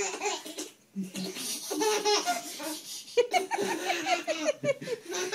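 A baby laughing in several runs of quick, short laughs.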